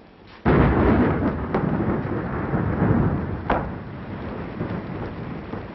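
A thunderclap breaks suddenly about half a second in and rolls away over several seconds, with a second sharp crack near the middle, over steady rain.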